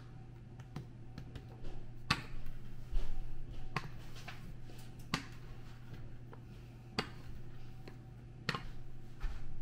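Kitchen work: about half a dozen sharp, irregularly spaced knocks and clicks of utensils and cookware being handled on a counter, with some brief rustling, over a steady low hum.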